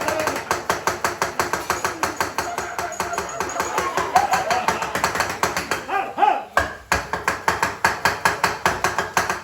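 Metal teppanyaki spatulas clacking fast and evenly on a hot iron griddle, about five or six sharp strikes a second, as the chef chops and works the food.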